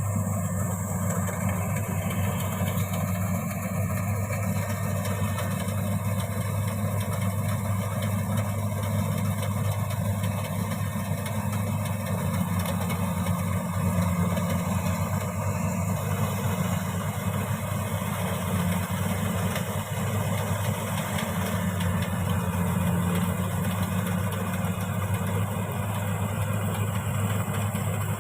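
Rice combine harvester's engine running steadily, a constant low drone with machinery noise over it.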